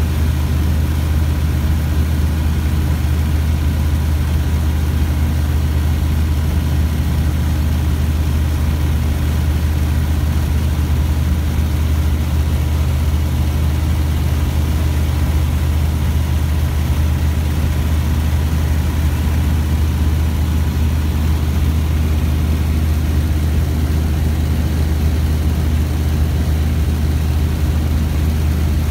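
Rotax 912 flat-four engine and propeller of a Skyranger Swift 2 ultralight, heard from inside the cockpit in flight. It drones loud and steady at about 3,800 rpm, with no change in pitch.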